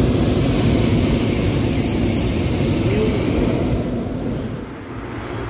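Hot-air balloon's propane burner firing overhead: a loud, steady rushing blast that dies away about four seconds in.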